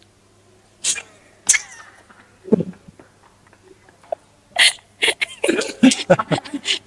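A man laughing hard in breathy bursts: a few short bursts in the first seconds, then a longer, denser run of laughter near the end.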